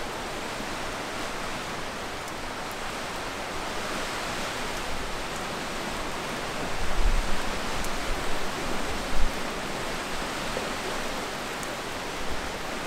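Strong wind blowing steadily through the trees, with heavier gusts buffeting the microphone about seven and nine seconds in.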